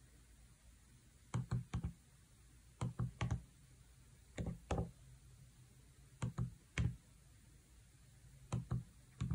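Keys of an HP 35S scientific calculator clicking as they are pressed, in quick pairs or triples about every second and a half: the recall key pressed before each letter key to type an alpha message.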